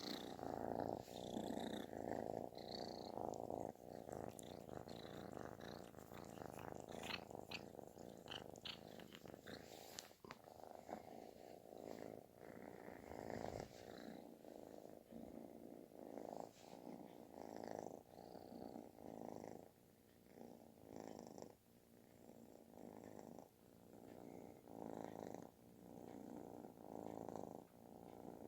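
Calico kitten purring very loudly, a snore-like rumble that pulses about once a second.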